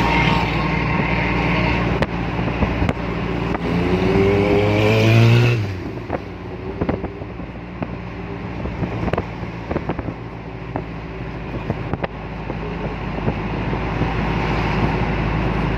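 Motor vehicle engine running, its pitch rising for about two seconds as it speeds up and then dropping away suddenly about five and a half seconds in. A lower steady rumble with scattered clicks and knocks follows.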